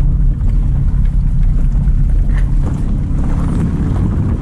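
Car engine and road noise heard inside the cabin while driving: a steady low drone.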